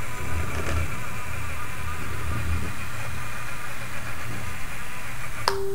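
Parallax Scribbler 2 robot's drive motors whirring steadily as it drives in a figure-eight pattern. A short single-pitched beep sounds near the end.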